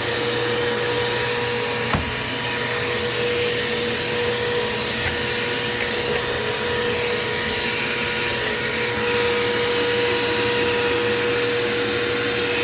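Dirt Devil Quick Power vacuum cleaner running steadily with a constant motor whine over airflow hiss, going over a spot. One short click about two seconds in.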